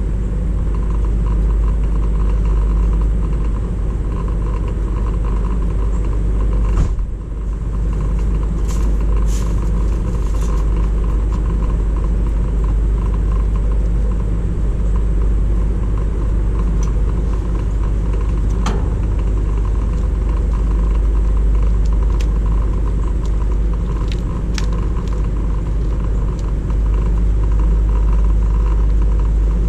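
Steady low rumble of a running vehicle, unchanging throughout, with a short dip about seven seconds in and a few faint ticks.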